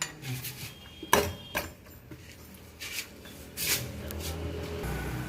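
Spanner working the rear sprocket nuts loose: several sharp metal clinks, then a steadier scraping rub near the end.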